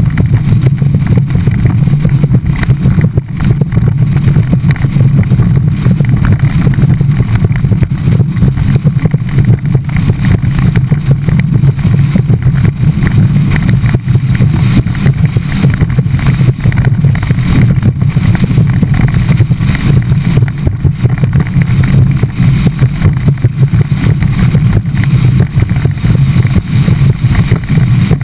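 Skeeter bass boat running across choppy water: a loud, steady low rumble from the outboard engine mixed with rushing wind on the microphone.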